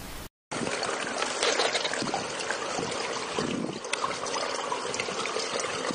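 A brief burst of TV-static hiss that cuts off suddenly, then steady splashing and trickling of swimming-pool water.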